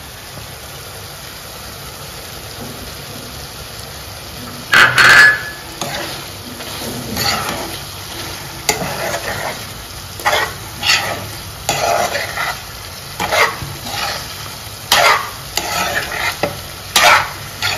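Chicken pieces sizzling steadily in a nonstick pan. From about five seconds in, a steel spoon stirs and scrapes them against the pan in repeated strokes, the first stroke the loudest, as chilli powder is mixed in.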